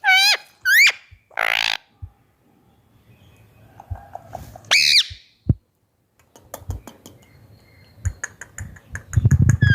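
Indian ringneck parakeet calling: a quick string of short whistled calls sliding up and down, a harsh squawk, and about five seconds in a single call that slides downward. Near the end comes a rapid run of clicks.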